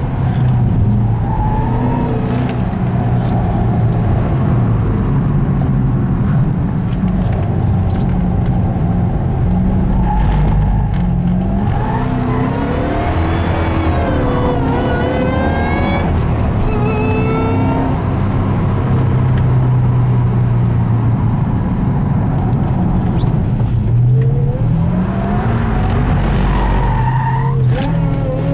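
Ford Shelby GT500's supercharged V8 heard from inside the cabin, running under load through the corners, its pitch climbing hard under acceleration about halfway through and again near the end, easing off in between.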